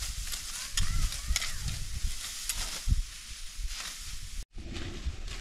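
Dry wheat stalks rustling and crackling as they are harvested by hand, with many short snaps and crackles. The sound drops out briefly about four and a half seconds in.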